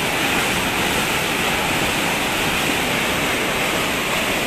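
Muddy floodwater rushing in a torrent down a concrete-walled channel, a steady loud rush. The flash flood from heavy rain is carrying stones and rocks along with it.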